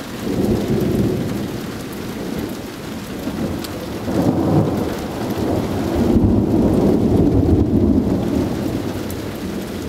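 Rolling thunder rumbling in long swells, loudest about six to eight seconds in, over steady heavy rain.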